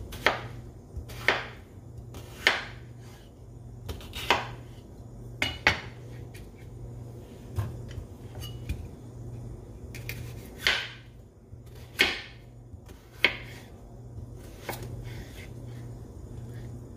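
Kitchen knife cutting raw chayote squash on a wooden cutting board: irregular sharp knocks as the blade goes through the squash and strikes the board, about a dozen over the stretch, every second or two.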